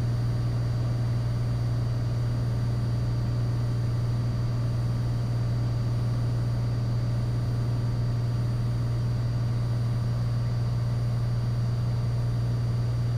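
Cessna 182 Skylane's engine and propeller in flight, a steady, unchanging low drone.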